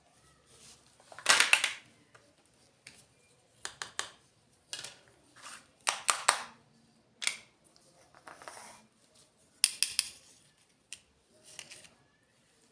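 Close-up handling sounds from unboxing small plastic toys: short bursts of crinkling, rustling and clicking, each lasting under a second, loudest about a second in and again near the end.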